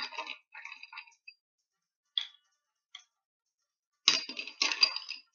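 Small artificial decorative stones clinking and clattering as they are dropped into a plant pot onto the plaster. There is a burst of clatter at the start, two single clicks in the middle and another burst near the end.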